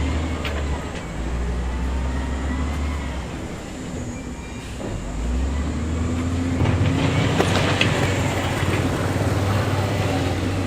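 Diesel engine of heavy earthmoving equipment running under load, its pitch dropping and then rising, growing louder about six seconds in with a clatter.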